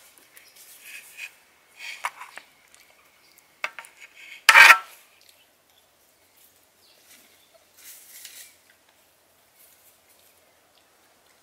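Tableware clinking and scraping: a utensil scraping food from a metal sadj pan and cutlery on plates, in short scattered clicks, with one loud sharp clatter near the middle and a softer scrape a few seconds later.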